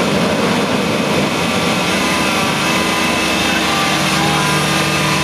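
Engine of a Feucht OB Future II fallen-fruit harvester running steadily under load as its raised hopper is emptied, a constant machine drone with several steady tones. A lower hum grows stronger about two-thirds of the way through.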